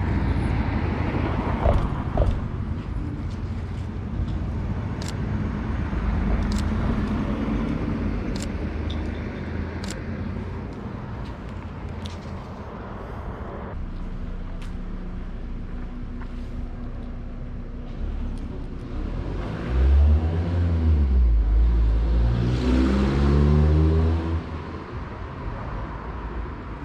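Street traffic: car engines and tyre noise passing by, with one car close by loud and climbing in pitch as it speeds up, then fading near the end.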